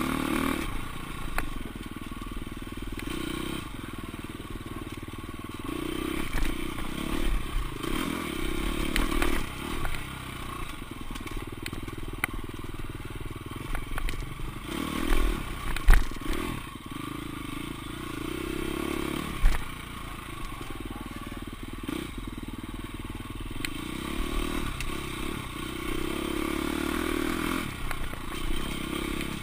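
Off-road dirt bike engine revving up and easing off again and again under the rider's throttle, with clatter and knocks from the bike over rough ground, two of them sharp and loud a little past the middle.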